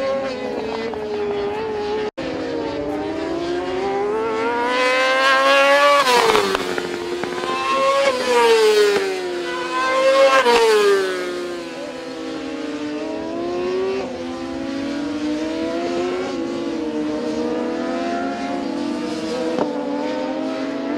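Racing sport motorcycles' engines revving high and passing by, the pitch rising and falling as riders shift and brake through corners. The loudest passes come about five, eight and ten seconds in, with several bikes heard at once.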